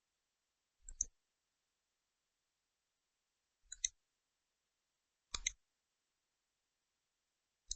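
Four faint computer mouse clicks spaced a couple of seconds apart, each a quick double tick of the button going down and coming back up.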